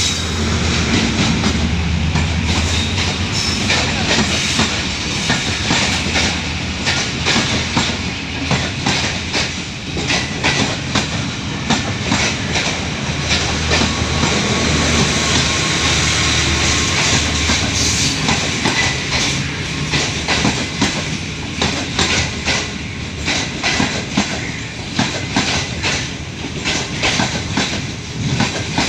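Train rolling past at low speed, its wheels clacking over rail joints in an uneven run of clicks, over a low steady rumble.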